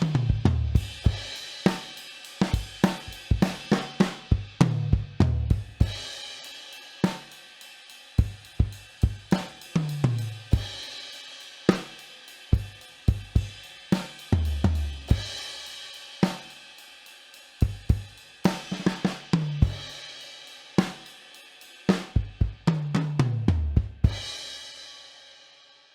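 Pearl Session Custom SMX all-maple drum kit played, with a steel snare, bass drum, hi-hat and cymbals. Tom fills run down in pitch from the high rack tom to the floor tom every four to five seconds. It ends on a crash cymbal left to ring out near the end.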